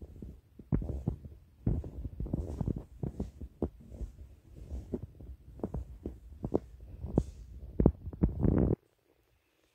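Irregular low thumps and rumble from a handheld camera being carried on foot: handling noise and footfalls on the microphone. The sound stops suddenly near the end.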